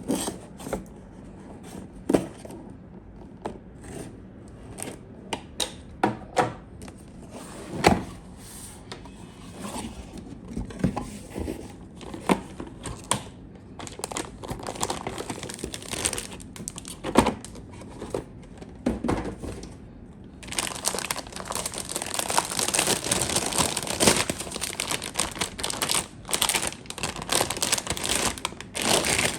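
Hands handling packaging: scattered sharp taps and knocks, then from about twenty seconds in a long stretch of continuous plastic crinkling, as of wrapping being pulled off a part.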